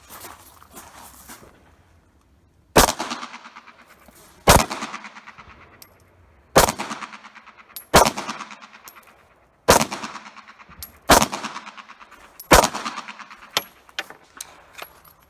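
Luger P.08 pistol in 9mm firing about seven single shots, one every second or two, each echoing briefly.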